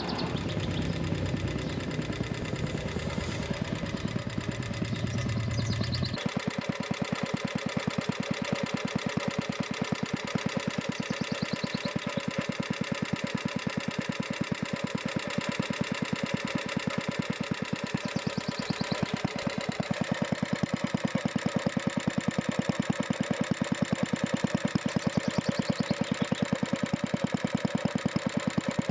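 1947 Clinton air-cooled single-cylinder gas engine running steadily, a rapid, even string of firing beats. About six seconds in, a low rumble drops away, leaving the individual beats standing out clearly.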